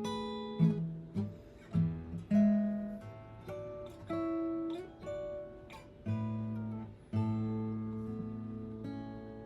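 Guitar fitted with new bone being played: a run of plucked single notes and chords, each ringing on after it is struck.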